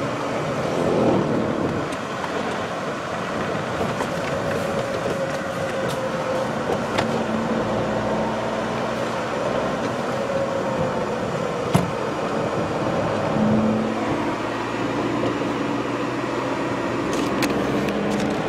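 Engine hum and road noise inside the cabin of a moving car, steady throughout, with a single sharp click about twelve seconds in.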